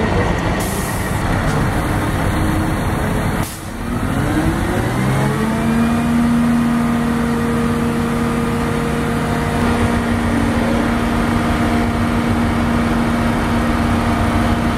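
Rough rushing noise for the first few seconds, then a HEMTT load-handling truck's diesel engine speeds up about four seconds in and holds a steady higher speed while it drives the hydraulic hook arm lifting a flatrack onto the truck.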